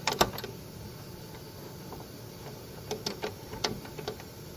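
Light metallic clicks and taps from a hand working the blade-raising bevel gears and shaft of a DeWalt DWE7491RS table saw: two sharp clicks at the start, then a quick run of about five clicks around three seconds in.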